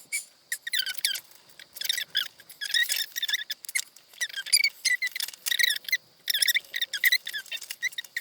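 Plastic doll-packaging fasteners squeaking and rubbing as they are twisted and pulled loose from a fashion doll's head, in a series of short squeaks with pauses between.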